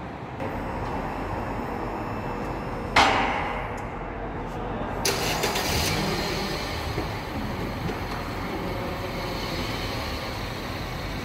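Shop scissor lift raising a Volkswagen Kombi bus, its power unit starting about half a second in and then running steadily. A sharp, loud bang comes about 3 seconds in, and a short burst of hissing follows about 5 seconds in.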